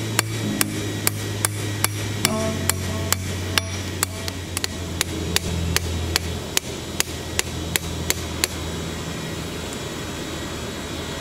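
Hand hammer striking a red-hot old file on a steel anvil while forging a knife blade: sharp, regular blows at about two to three a second that stop about eight and a half seconds in.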